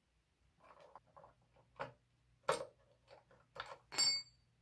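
Small metal utility tools (combination spark plug wrenches) clicking and clinking as they are handled and put down: a few separate taps, the loudest about four seconds in with a brief metallic ring.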